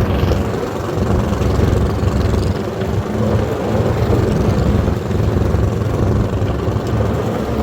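Yanmar diesel engine of an Ockelbo snowmobile running steadily while the sled is under way.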